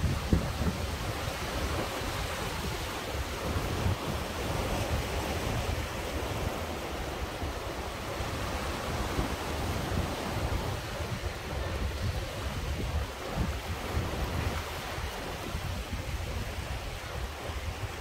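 Sea surf washing in and out around coastal rocks, a steady rushing wash with no single breaker standing out. Wind buffets the microphone, adding a low, uneven rumble.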